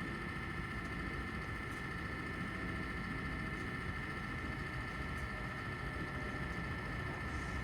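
2021 Ford F-150 PowerBoost hybrid sitting with its gas engine shut off: a steady low rumble with two faint, steady high whines and no engine start.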